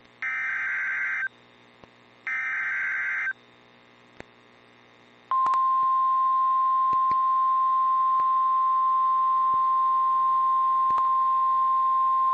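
Emergency Alert System activation on NOAA Weather Radio: two raspy, roughly one-second bursts of the SAME digital header about a second apart. After a short pause, the steady single-pitch 1050 Hz warning alarm tone starts about five seconds in and holds, signalling that a warning message, here a severe thunderstorm warning, is about to be read.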